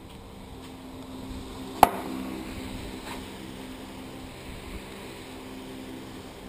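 A single sharp knock about two seconds in, as of a hard object striking or set down on a hard surface, over a steady low hum.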